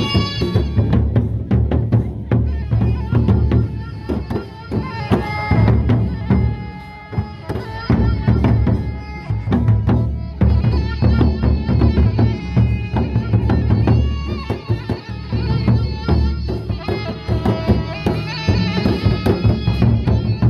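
A gendang beleq ensemble playing in procession. The large double-headed barrel drums beat a dense, driving rhythm under a continuous melody of sustained tones.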